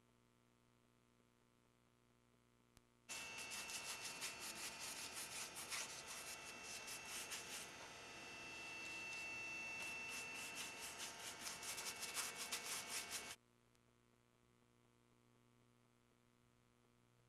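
Paintbrush scrubbing paint over the wood-burned scales of a carved wooden snake in rapid back-and-forth strokes, with a smoother steady rub in the middle. It starts about three seconds in and stops abruptly some ten seconds later, over a faint mains hum.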